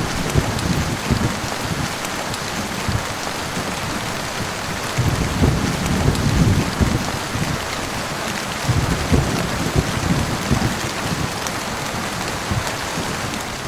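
Steady heavy rain, with low rolling rumbles of thunder coming and going three times: at the start, midway and again a little later.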